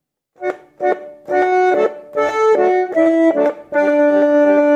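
Garmon (Russian button accordion) playing a short phrase of separate notes and chords that starts about half a second in, then holding one full chord near the end.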